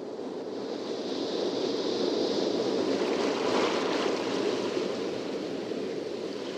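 A steady, rushing, water-like noise that fades in at the start and swells gently toward the middle before easing a little.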